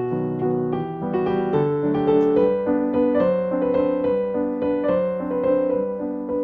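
Background piano music, a gentle melody of single notes over chords in a steady flow.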